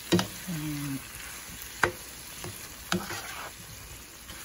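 Pork cubes and tomatoes sizzling in a frying pan as they are stirred, with a steady hiss and a utensil knocking against the pan three times.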